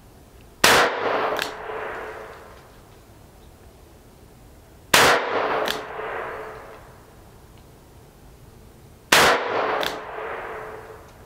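Three single shots from a Taurus Tracker 627 .357 Magnum revolver loaded with .38 Special rounds, about four seconds apart. Each loud crack is followed about two thirds of a second later by a shorter second crack and a fading tail.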